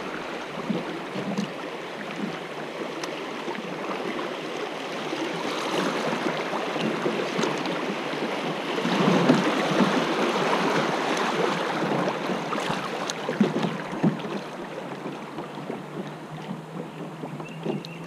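Shallow creek water rushing and splashing around a plastic kayak as it is paddled through a riffle, swelling louder midway, with a few sharp knocks later on.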